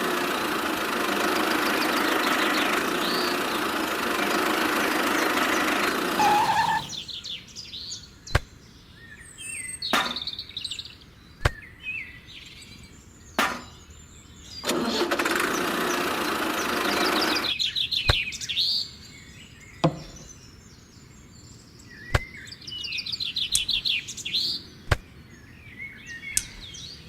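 A small motor runs loudly for about six seconds, stops, and runs again for about three seconds in the middle. Between the runs, birds chirp and there are a few sharp clicks.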